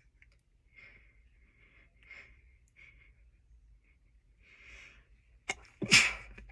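Faint, uneven breaths and sniffs as a sneeze builds, then about five and a half seconds in a sharp catch and a single stifled sneeze held back in the nose and throat, the loudest sound, brought on by sniffed chhinkni sneezing powder.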